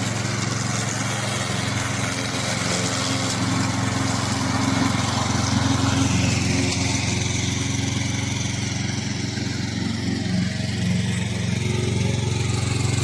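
Vigorun VTLM800 crawler slope mower's 16 HP gasoline engine running steadily, at an even level throughout.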